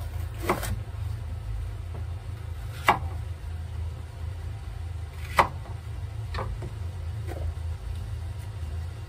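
Chef's knife cutting through a green bell pepper and striking a wooden cutting board: three sharp knocks a couple of seconds apart, followed by two softer taps. A steady low hum runs underneath.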